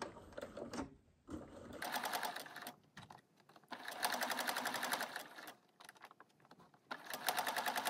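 Electric sewing machine running a straight stitch in three short runs of one to two seconds each, with brief pauses between: backstitching at the start of a seam, then sewing on.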